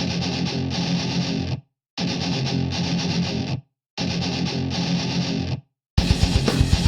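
Intro music: three held distorted electric-guitar chords, each cut off into a short silence, then a fast rock drum beat kicks in near the end.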